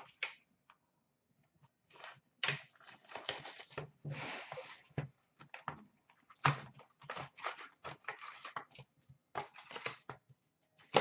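Cardboard trading-card box and foil-wrapped packs being handled: a quick run of short rustling, scraping and tearing noises that starts about two seconds in.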